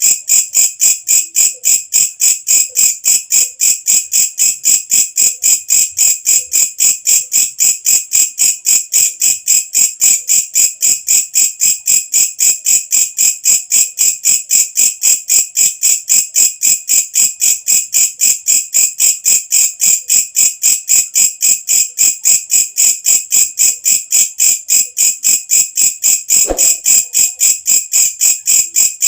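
Walang kecek, a singing bush cricket, calling with a steady, rapid train of shrill, high-pitched pulses, about four to five a second. There is one faint knock near the end.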